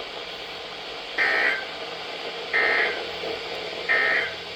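NOAA Weather Radio sending the EAS end-of-message code: three short, identical bursts of shrill, buzzing SAME digital data tones about a second and a half apart, over the receiver's steady background hiss. This marks the end of the warning broadcast.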